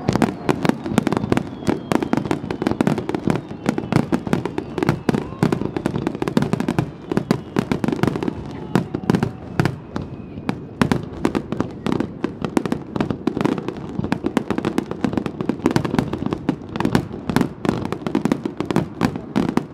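Starmine fireworks barrage: aerial shells launching and bursting in rapid succession, a dense string of bangs and cracks several a second with no let-up.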